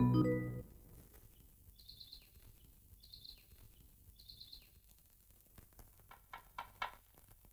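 Background music fades out, then faint chirping: three short, rapid trills about a second apart, followed by a few soft clicks near the end.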